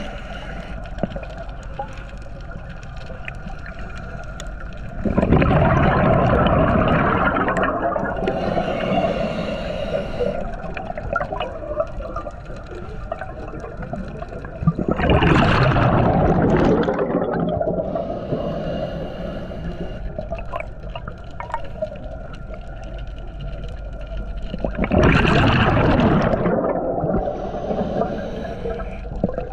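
Scuba diver breathing through a regulator, heard underwater: three exhalations about ten seconds apart, each a loud rush of bubbles, each followed by a shorter, higher hiss of the next inhalation.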